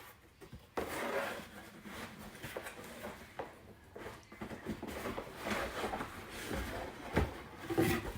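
Cardboard packaging being handled and opened by hand: irregular rubbing, scraping and rustling, with small knocks and a couple of sharper knocks near the end.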